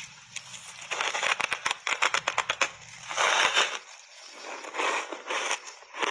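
A block of ice coated in purple powder and milk powder being bitten and chewed: a run of sharp crackling crunches about a second in, a louder dense crunch around three seconds, then chewing crunches near the end.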